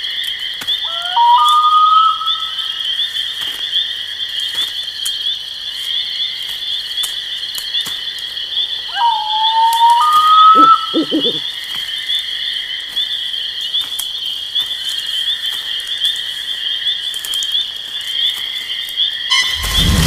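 Night chorus of frogs and insects, a steady high trilling. Twice, about a second in and again about nine seconds in, a clear two-note whistle steps up in pitch.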